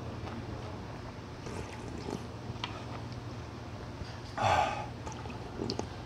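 A person slurping meat-noodle soup broth from a metal ladle: one brief, loud slurp about four and a half seconds in, with a few faint clicks around it.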